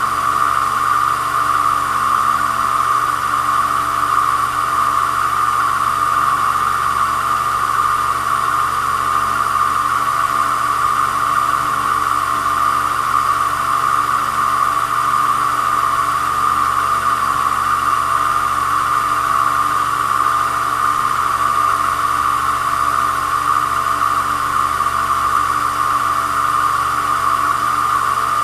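Small cue-repair lathe running steadily at constant speed, its motor giving an unbroken whining hum while it spins a pool-cue shaft.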